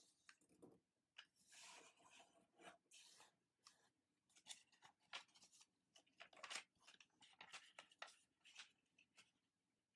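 A sheet of origami paper handled and folded by hand, faintly rustling and crackling as it is slid, lifted and creased, in a run of short scrapes with a longer rustle a couple of seconds in.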